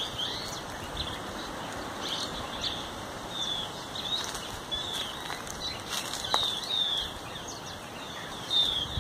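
Small birds chirping, with short high notes repeating about once or twice a second over a steady hiss of outdoor background. A few faint clicks and leaf rustles come from branches being handled about six seconds in.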